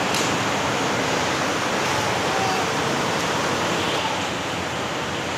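A steady rushing noise with no breaks.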